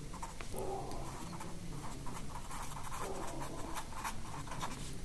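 Pen writing on paper: a run of faint, quick scratching strokes as words are written out, over a steady low hum.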